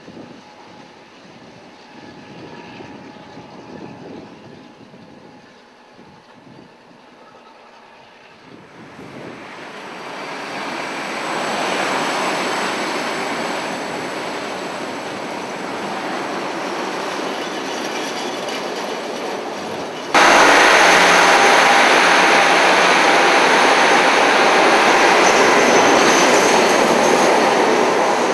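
Suburban diesel multiple unit running past on the tracks, a steady rumble that builds over a few seconds about a third of the way in. About two thirds of the way in the sound cuts abruptly to a louder, closer train running along the platform.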